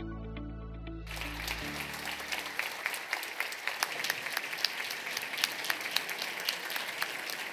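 Background music fading out about a second and a half in as a hall audience breaks into applause, many hands clapping densely.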